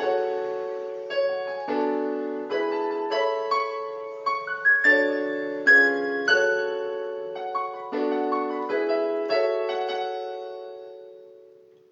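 Electronic keyboard on a piano sound, played with both hands: a right-hand melody over left-hand chords. The last chord is held and fades out near the end.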